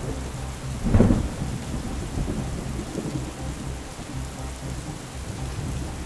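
Steady rain with rumbling thunder, a louder roll of thunder about a second in.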